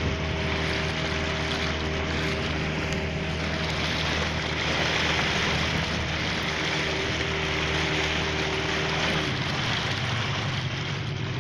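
A small boat's outboard motor running at speed while the boat planes, with water rushing and spraying along the hull. About nine seconds in, the engine note drops lower.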